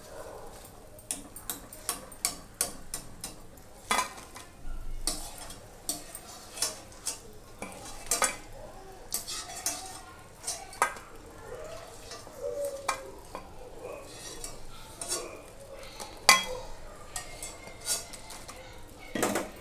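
A wire-mesh spider skimmer clinking and scraping against a metal kadhai as fried banana chips are scooped out of hot oil, in irregular clinks, over a faint sizzle of the oil.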